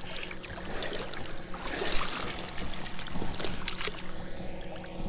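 Shallow river water splashing and sloshing around a wader's legs and a large white sturgeon as the fish is held and let go, with scattered small splashes.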